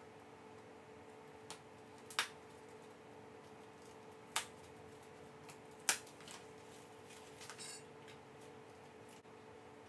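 Sharp clicks and taps of hardware and tools on a metal chair frame during assembly: three distinct clicks about two, four and a half, and six seconds in, and a short rattle near the end, over a faint steady hum.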